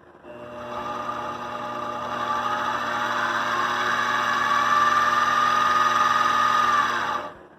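Klutch benchtop mini milling machine's 350 watt spindle motor running with a steady whine. It starts just after the beginning, grows louder over the first few seconds as it comes up to speed, and switches off about seven seconds in.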